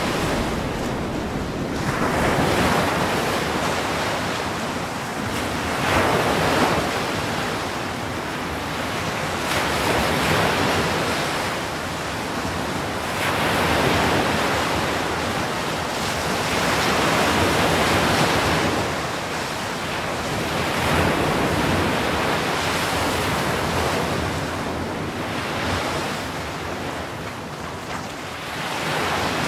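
Ocean surf: waves breaking and washing in, a continuous rush that swells and ebbs every few seconds.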